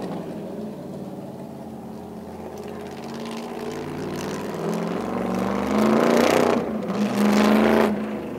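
Cunningham C-4R's Chrysler Hemi V8 driving past, its note building and rising in pitch as the car accelerates. It makes two hard pulls with a brief dip between them, then backs off near the end.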